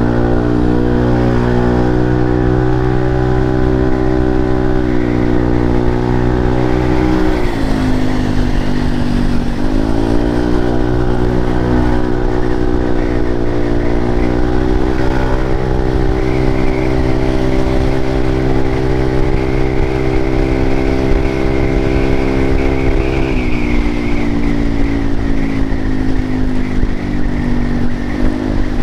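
Yamaha Lexi single-cylinder scooter engine running through an Arrow aftermarket exhaust, its note holding a steady pitch. The pitch falls and climbs back about eight seconds in, and drops to a lower steady pitch about 23 seconds in, as the throttle is eased.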